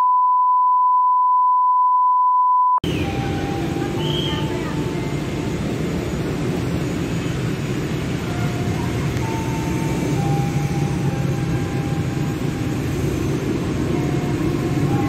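A steady, high-pitched test-tone beep that cuts off suddenly about three seconds in, giving way to the ambience of a commuter-rail station platform: a steady low rumble with faint distant voices, growing slightly louder near the end.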